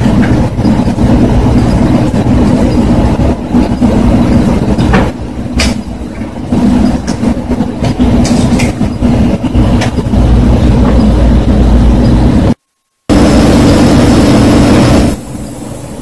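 Loud, steady rumbling noise with a low hum. It cuts out completely for about half a second near the end, then falls to a much quieter hiss shortly after.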